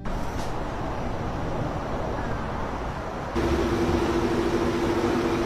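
Steady outdoor engine and traffic noise. About three and a half seconds in, it changes abruptly to a louder, steady hum.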